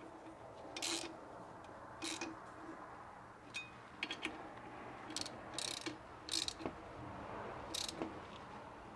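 Scattered light clicks, taps and brief rustles of hand work on small parts, about eight in all at uneven intervals, as wires and parts of the motor are worked into place.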